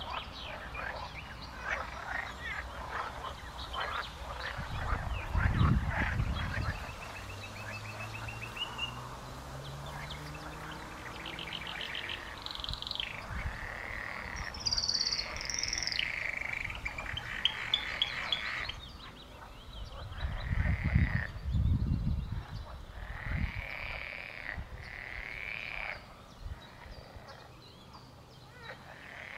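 Pond frogs croaking in rattling runs, with short, high, arched bird calls repeating through the second half.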